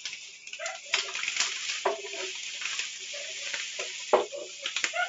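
Crushed malt pouring from a plastic bag into hot water in a stainless steel pot while a wooden spoon stirs: a steady hiss with scattered sharp clicks and knocks. This is the dough-in of a beer mash, the grain stirred in as it goes to keep lumps from forming.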